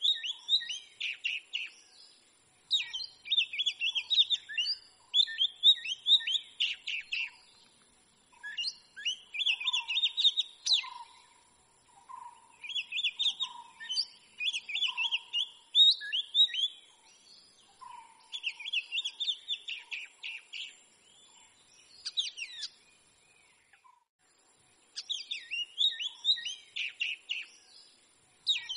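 Oriental magpie-robin singing: bouts of rapid, varied high chirps and whistles lasting a few seconds each, separated by short pauses.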